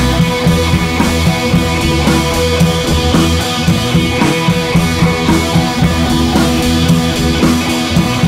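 Background music with drums and guitar, at a steady beat.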